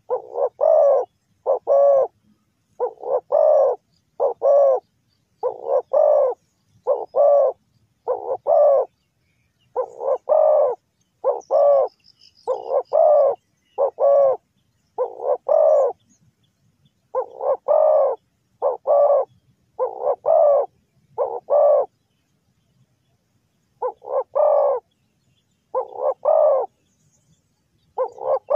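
Spotted dove cooing: a two-note phrase, a short coo followed by a longer one, repeated over and over about every second and a half with a few short pauses.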